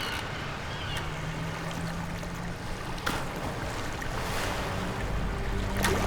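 Sea sound effect: a steady wash of waves and water around a boat, with a couple of faint knocks.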